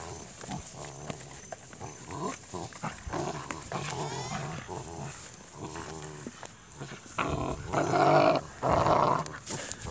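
Dutch Shepherd x Belgian Malinois puppies growling and yapping in play as they bite and tug at trouser legs. Two louder, longer outbursts come near the end.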